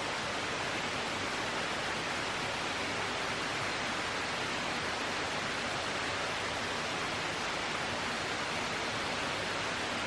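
Steady, unbroken rushing of water, an even hiss with no single events standing out.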